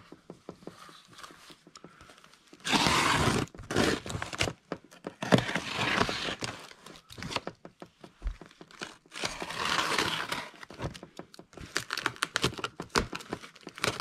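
Packing tape being ripped and peeled off a cardboard shipping box in three long tearing stretches, followed by a run of short crackles and taps as the cardboard and tape are handled.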